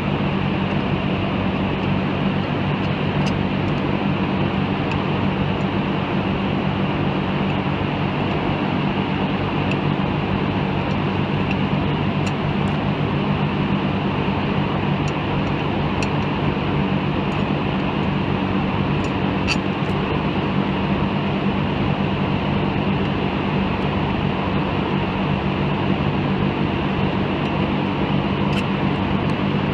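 Steady machinery hum: a low drone under an even rushing, fan-like noise, with a few faint clicks now and then.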